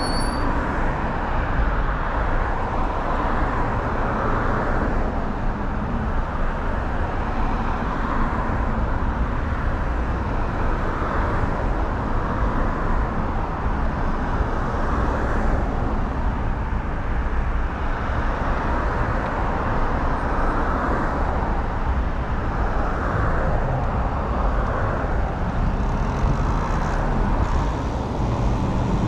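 Steady wind rush buffeting the microphone, with tyre and road noise, while riding a Talaria Sting R MX4 electric dirt bike at speed.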